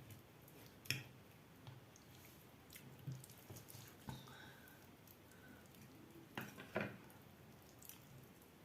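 Quiet kitchen handling of boiled chicken and its broth: a few soft wet squishes and light clicks, the loudest pair a little before the end.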